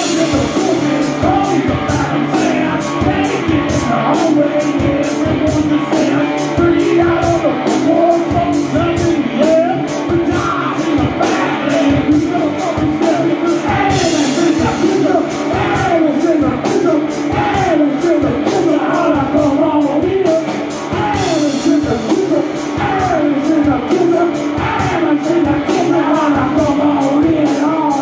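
Electric guitar and drum kit playing loud, uptempo blues-rock live, with cymbals and a chest-worn washboard struck with drumsticks keeping a fast, even beat.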